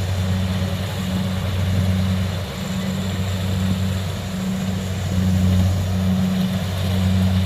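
Kubota DC70 combine harvester's diesel engine running steadily under load with a low, even hum while it harvests rice.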